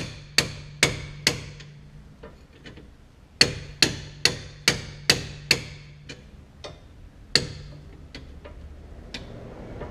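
Hammer striking steel, knocking at a seized sway bar end link ball joint to free it. The blows come in quick runs of about two a second, each with a short metallic ring: four at the start, then after a pause six more, then a few lighter, scattered blows.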